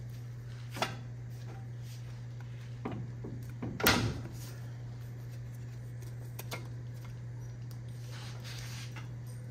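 A few metallic clunks and knocks from parts being handled on a truck's front axle knuckle, the loudest clank about four seconds in, over a steady low hum.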